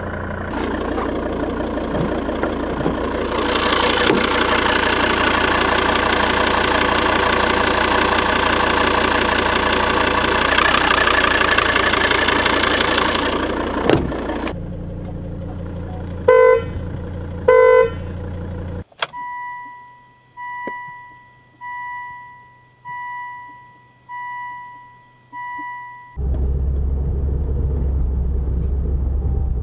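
Volvo S80 D5's 2.4-litre five-cylinder common-rail turbodiesel idling, then held at raised revs for about ten seconds before dropping back to idle. Two short horn honks follow, the engine is switched off, and the car's warning chime dings six times. Near the end the diesel runs again, heard from inside the cabin.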